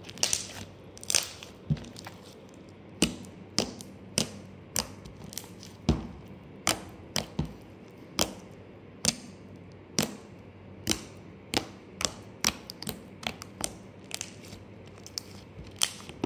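Shiny blue slime being squeezed and worked by hand, giving off a long run of sharp popping clicks as trapped air bursts out, about one or two pops a second at an uneven pace.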